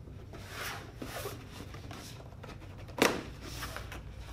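Cardboard camera box being opened by hand: the packaging rustles and slides, with one sharp knock about three seconds in, the loudest sound.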